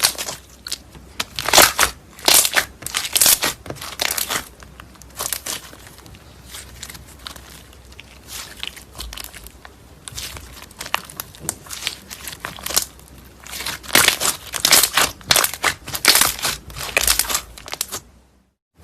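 Slime being squeezed and pressed by hand, making irregular crackling, crinkling sounds in bunches of bursts. It cuts off suddenly near the end.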